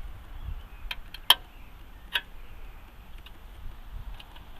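A handful of sharp, irregular clicks and ticks, the loudest about a second in, from a thin aluminium drink can being handled and turned in the fingers, over a low handling rumble.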